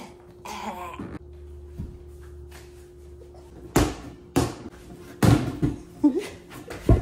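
Large rubber playground ball bouncing on the floor, about four loud thuds in the second half.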